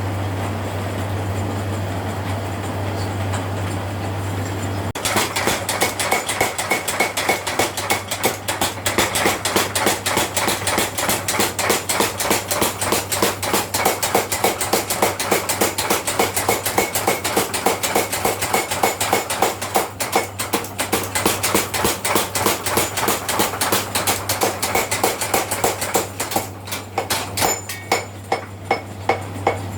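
Blacksmith forging a nata blade: rapid, even hammer blows on steel, about five a second, starting about five seconds in and turning slower and irregular near the end. A steady low hum lies under it.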